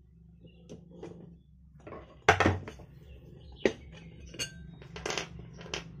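Metal clinks and clanks from a ceiling fan motor being taken apart, its screws and metal housing handled and set down: a loud clank a little over two seconds in, then four lighter clinks spaced under a second apart.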